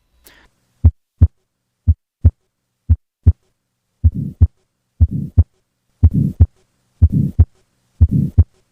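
Recorded heart sounds at about one beat a second. The first three beats are clean lub-dub pairs; from about four seconds in, a harsh murmur fills the gap between the first and second sound of each beat. It is the systolic murmur typical of tetralogy of Fallot, from blood forced through the narrowed pulmonary outflow.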